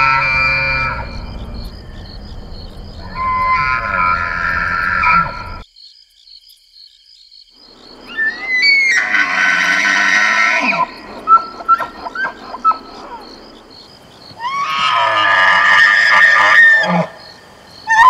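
Bull elk bugling in the rut: several long high whistling calls. The later ones slide up in pitch, hold, and are followed by a string of short grunting chuckles.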